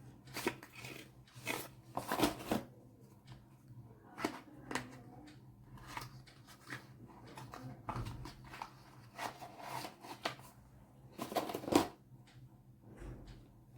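A product box and its packaging being opened by hand: irregular rustles, scrapes and clicks of cardboard and plastic, with a louder cluster near the end.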